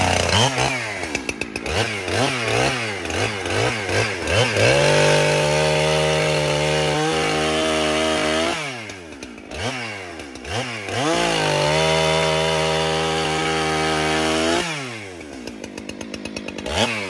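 Redmax two-stroke chainsaw, its carburetor freshly retuned by the owner, revved in a string of quick blips. It is then held at full throttle through two cuts into dry timber, dropping off between them, and settles to idle near the end.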